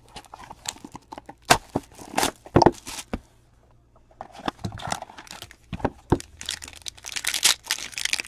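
A Topps Tier One baseball card box being opened by hand: scattered taps and scrapes of the box, a short pause, then dense crinkling and tearing from about six seconds in as the pack wrapper is torn open.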